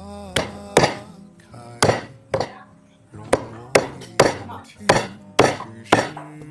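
Knife chopping on a chopping board: about ten sharp strikes at uneven intervals.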